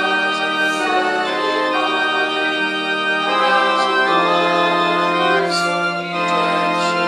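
Organ playing slow, sustained held chords. The chord changes about three to four seconds in.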